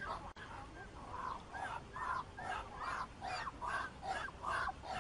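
Domestic waterfowl calling over and over, about three calls a second, with a split-second gap just after the start.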